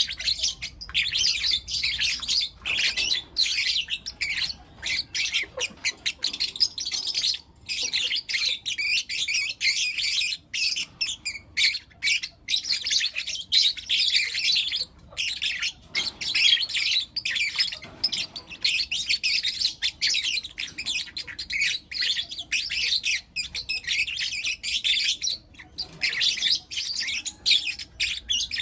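Young lutino lovebirds chirping and squawking continuously, a dense stream of rapid, high-pitched calls from several birds at once.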